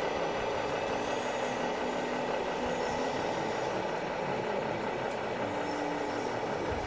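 Radio-controlled model trucks running: a steady mechanical whirr of small motors and gears, with several steady tones mixed in.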